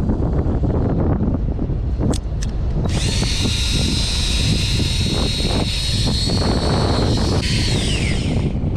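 Electric fishing reel motor whining steadily as it winds in line, starting about three seconds in and falling in pitch as it stops near the end, over the low rumble of the boat's engine and wind.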